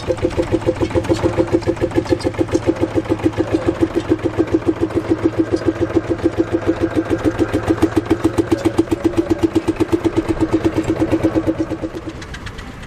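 Marshall single-cylinder two-stroke diesel tractor engine running with an even, slow chugging beat, about six beats a second. The beat fades out near the end.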